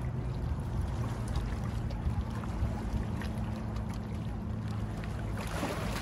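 Steady low hum in the background; about five and a half seconds in, a hooked American shad splashes and thrashes at the water's surface as it is reeled in to the rocks.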